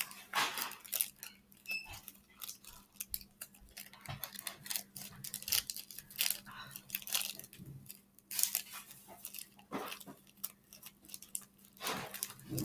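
Slime being mixed and worked, giving a run of irregular wet clicks and crackles.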